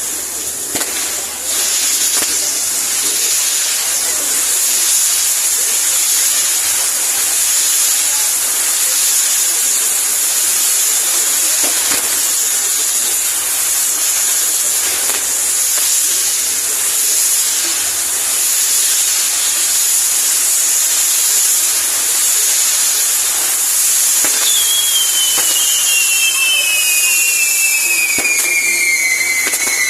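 Fireworks castle (castillo) burning with a steady, loud hiss and scattered faint pops. Near the end, several whistling fireworks sound, each falling in pitch.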